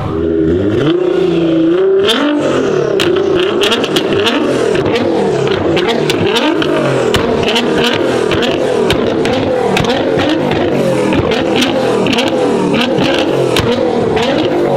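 A high-performance car engine being revved: it climbs in pitch over the first two seconds, then is held high and blipped up and down. A rapid run of sharp exhaust cracks and pops follows, a few a second.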